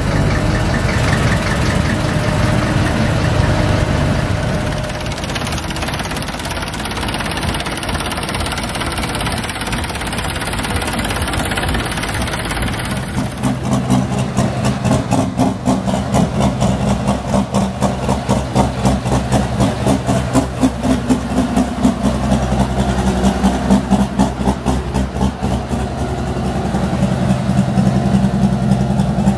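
Diesel engine of a competition pulling tractor running. About halfway through it settles into an idle that pulses in a regular, uneven rhythm.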